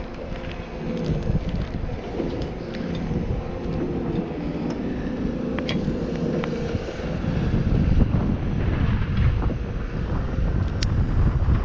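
Strong wind buffeting the microphone in gusts, a low rumble that swells about two-thirds of the way through, with a few faint sharp clicks.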